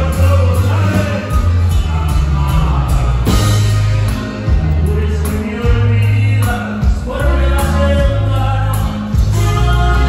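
Live norteño band playing loud through the PA: button accordion and saxophone over electric guitar, bass and drums, with singing.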